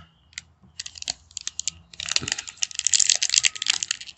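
Plastic wrapper of a 2022 Topps Heritage baseball card pack being handled and torn open: a few sharp crackles at first, then from about two seconds in, a dense run of crinkling and tearing as the top seam is ripped.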